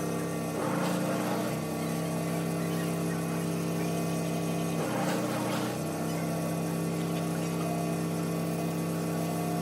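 A small electric motor running with a steady hum, its sound briefly changing twice, about a second in and about five seconds in, as if loaded.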